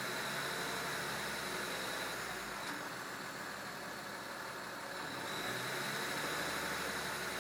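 BMW 325i's N53 straight-six petrol engine idling steadily, with a thin high squeaking tone over the engine noise: the chirping and squeaking the car is being recorded for.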